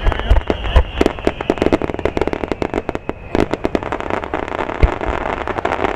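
Fireworks going off: dense, rapid crackling and popping with deep bangs, heaviest in the first second or so. A high whistle slowly falls in pitch and cuts off about three seconds in, and one loud bang comes near five seconds.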